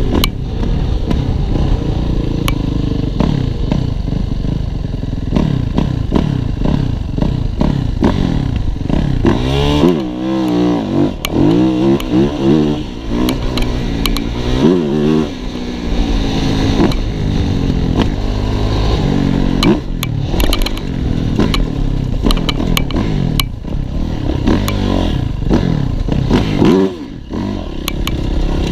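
Yamaha YZ450F four-stroke single-cylinder dirt bike engine being ridden hard, its pitch sweeping up and down again and again with the throttle and gear changes. Sharp knocks and rattles from the bike over rough ground run through it.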